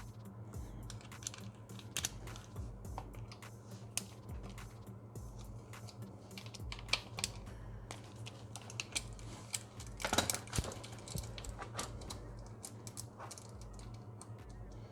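Scattered light clicks and taps of hand tools and small metal parts as the original bolts are worked off the motorcycle, irregular rather than a steady ratchet rhythm, with a brief cluster of louder clicks about two-thirds of the way in. A steady low hum lies underneath.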